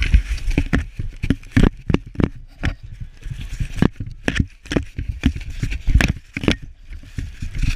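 English setter puppies licking and nosing at a peanut-buttered GoPro right against the microphone: a quick, irregular run of licks, knocks and scrapes on the camera housing.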